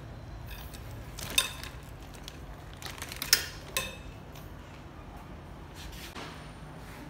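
Metal clip and fittings of a dog leash clinking as the leash is handled, with three sharp, ringing clinks spread over a few seconds.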